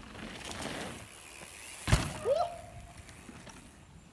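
Downhill mountain bike riding over a dirt trail, its tyres rumbling on the ground. There is a sharp knock about two seconds in as it hits a bump, then a brief squeal that rises and then holds.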